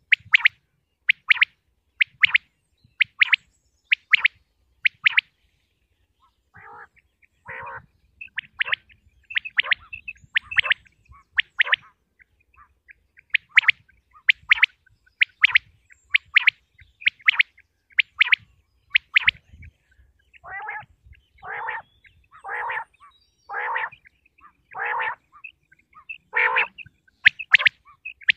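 Common quail calls: short, sharp, high notes repeated about once a second. Lower, longer, rougher calls join in from about two-thirds of the way through.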